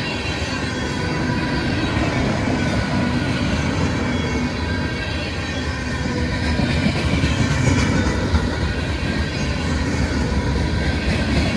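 CSX freight train Q372 rolling past, its steel wheels rumbling steadily on the rails with thin squealing tones and a few clicks from the wheels.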